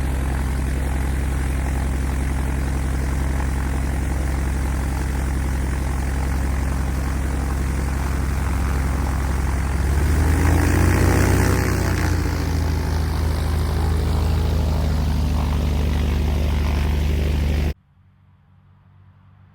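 Propeller aircraft's piston engine running steadily, with a brief swell that rises and falls in pitch about ten seconds in; the sound cuts off suddenly near the end, leaving a much quieter background.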